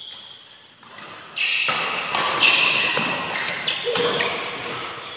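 Badminton rally: rackets strike the shuttlecock in a series of sharp hits a second or two apart, echoing in a large sports hall.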